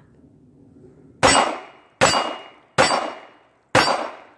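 Five shots from a 9 mm Star B pistol, starting about a second in and spaced roughly three-quarters of a second apart, each followed by the ring of a steel target plate being hit.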